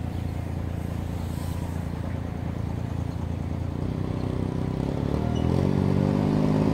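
Mini FPV racing quadcopter (KingKong Fly Egg 130) with 1105 brushless motors buzzing in flight: a steady multi-toned hum that grows louder from about four seconds in as the quad comes closer.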